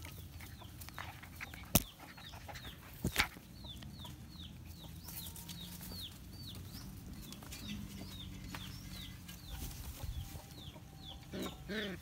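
Chicks peeping over and over, short high falling peeps about two or three a second. Two sharp knocks come about two and three seconds in, and louder calls that rise and fall in pitch start near the end.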